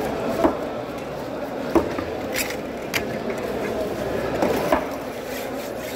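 Knife cutting through a large yellow trevally on a wooden chopping block, giving about six short, sharp knocks at irregular intervals over a steady background din.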